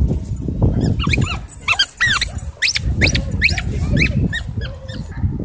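Dogs at play: a rapid run of short, high-pitched squeals, several a second, from about a second in until near the end, over a low rumble.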